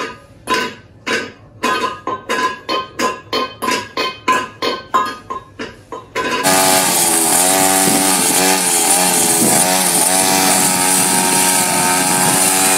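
Short plucked-string notes repeating and quickening for about six seconds, then an abrupt cut to a petrol string trimmer running and revving up and down, with a steady hiss.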